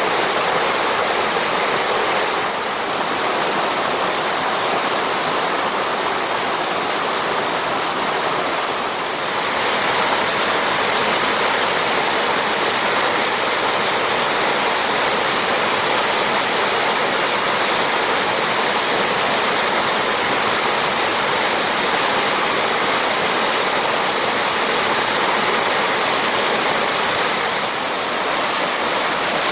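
Steady, loud rush of water from a waterfall on a mountain stream: a dense, even hiss that dips slightly in level a few times.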